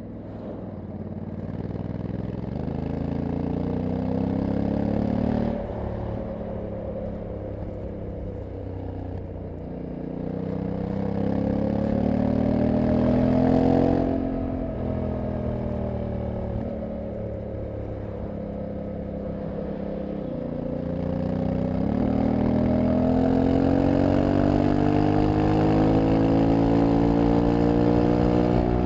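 2023 Honda CRF1100L Africa Twin DCT's 1084 cc parallel-twin engine and exhaust, heard from the rider's seat under hard acceleration. The engine note climbs for several seconds and drops about five seconds in, climbs again and falls away about fourteen seconds in, then rises from about twenty seconds in and holds high at speed.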